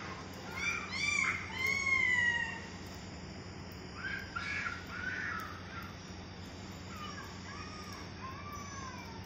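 Crows cawing in three short runs of several calls each, the loudest run about a second in.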